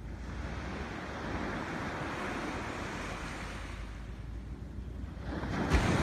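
Surf breaking on a sandy beach: a steady rushing wash of waves that swells and eases, then surges louder near the end as another wave breaks on the shore.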